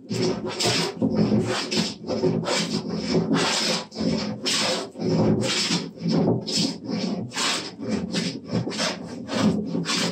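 Wooden jointer plane shaving a wooden workbench top in quick, repeated strokes, about two or three a second, each a rasping scrape of the iron cutting. The strokes are working down a belly in the top to flatten it.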